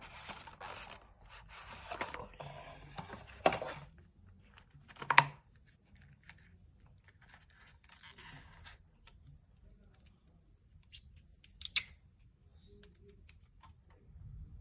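Packaging of a lavalier microphone set being opened by hand: rustling and scraping of box and wrapping, broken by sharp clicks and snaps, with two loud ones about three and a half and five seconds in and another cluster near the end.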